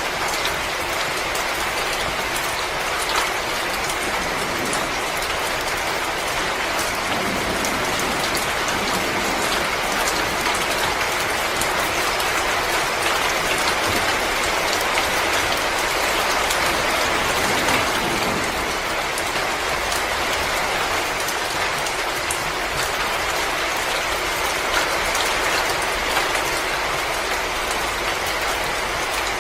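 Wood fire in a fireplace crackling: a steady hiss dotted with many small pops and snaps.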